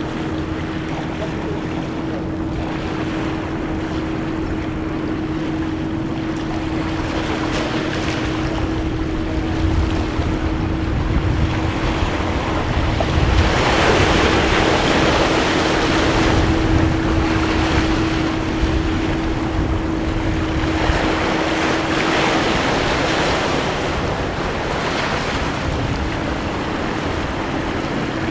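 Small ocean waves washing over seaweed-covered rocks and breaking in surges, loudest about halfway through, with wind rumbling on the microphone. A steady low hum runs underneath throughout.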